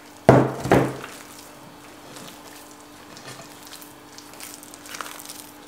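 Hands kneading soft cookie dough in a glass bowl: two short, loud handling sounds about half a second apart near the start, then only faint light sounds over a low steady hum.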